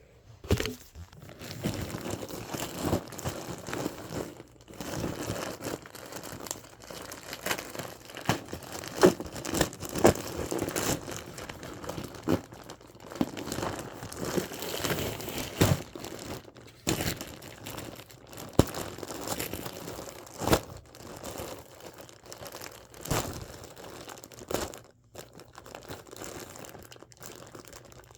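Packaging crinkling and tearing as it is handled and opened, with a steady run of rustles and sharp snaps.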